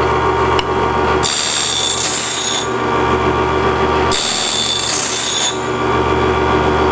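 Cook's Cat Claw automatic bandsaw blade sharpener running: its motors hum steadily while the grind rock grinds the blade's teeth. The grinding hiss comes and goes in spells of about a second and a half.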